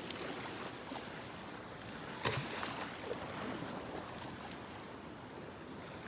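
Steady rush of wind and surf, with one sharp click a little over two seconds in.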